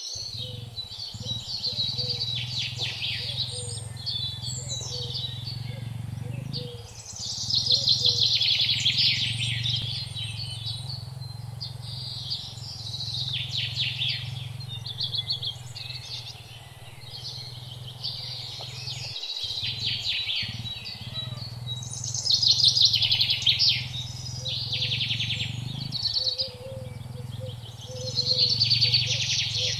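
Birds chirping in rapid, chattering bursts a second or two long, again and again, over a steady low rumble.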